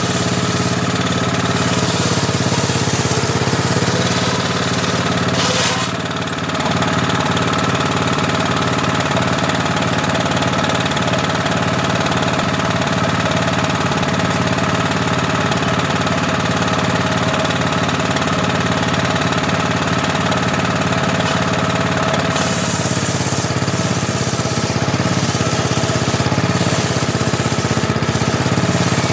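Homemade circular table saw running with a steady mechanical drone. The sound dips briefly about six seconds in and turns hissier from about twenty-two seconds in.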